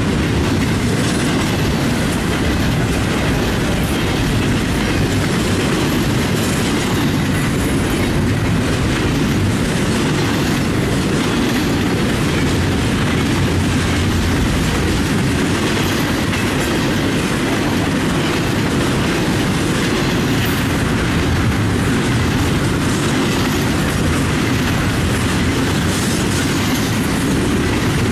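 Double-stack intermodal freight cars rolling past, their steel wheels making a steady, loud noise on the rails with a faint clatter over the joints.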